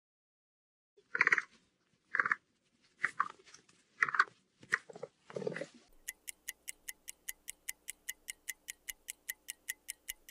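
Capybara calling: about seven short squeaky calls. About halfway through they give way to a quiz countdown timer ticking like a clock, about five ticks a second.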